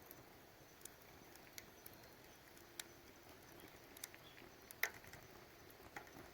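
Wood fire crackling in a fire can: scattered sharp pops and snaps over a quiet background, one louder pop near the end.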